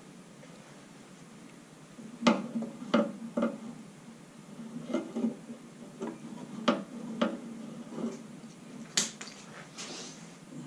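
Irregular clicks and light knocks of small parts, wire and tools being handled while splicing a tail light's wiring, starting about two seconds in, with a brief hiss near the end.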